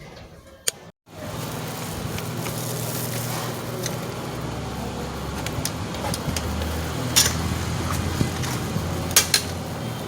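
A steady low hum sets in after a brief break about a second in, with a few sharp metallic clicks from the softbox's metal rods being handled, twice close together near the end.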